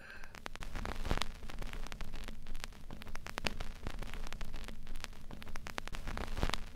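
Crackling static: a steady hiss with a low hum, dotted with many irregular sharp clicks and pops.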